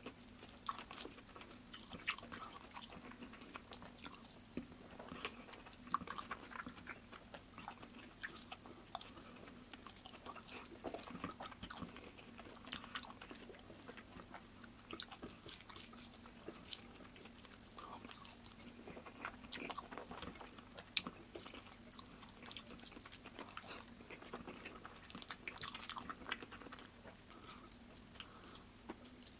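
Close-miked chewing of rice and curry eaten by hand: many small irregular mouth clicks and bites, with a faint steady hum underneath.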